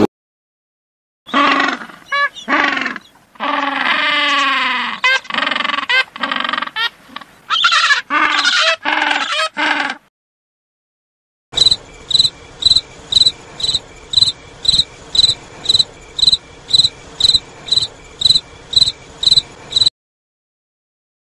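Penguins calling: a run of loud, pitched calls that glide up and down. Then an insect chirping evenly, about two and a half high chirps a second.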